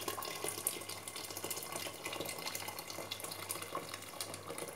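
Boiled water poured in a steady stream from a kettle into a tall stainless steel pressure cooker.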